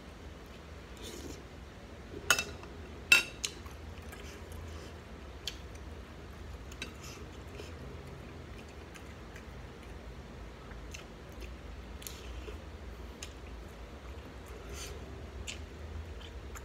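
Close-up chewing and wet mouth sounds from eating shrimp and sausage, with many small clicks throughout. Two much louder sharp clicks come about two and three seconds in.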